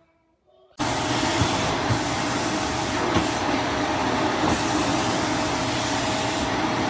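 Eureka Whirlwind NEN110C canister vacuum cleaner running: a loud, steady rushing of air with a steady motor whine. It starts abruptly about a second in.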